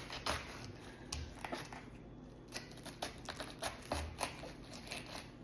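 Knife cutting into a raw head of cabbage to cut out the core: a run of irregular crisp crunching cuts through the leaves, with a few dull knocks.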